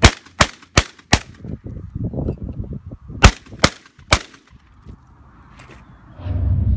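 Benelli Super Black Eagle II 12-gauge semi-automatic shotgun fired in quick strings at a flurry of clay targets: four shots in just over a second, then three more about two seconds later, with a rumbling tail after the first string. A low rumble begins near the end.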